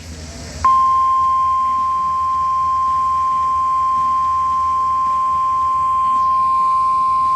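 NOAA Weather Radio 1050 Hz warning alarm tone: a single steady, loud tone that cuts in suddenly about half a second in over faint radio hiss and holds unchanged, announcing a severe thunderstorm warning.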